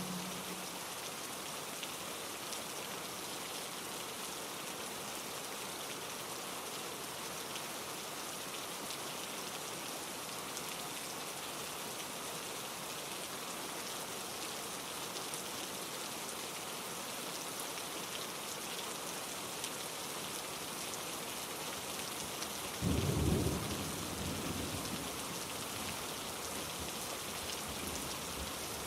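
Steady rain hissing in a mountain forest, mixed with rushing stream water. About three-quarters of the way through comes a brief low rumble that fades over a few seconds.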